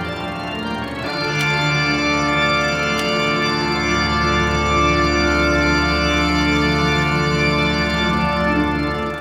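Organ music: long sustained chords that swell louder about a second in, with a deep bass note entering about halfway through, fading out near the end.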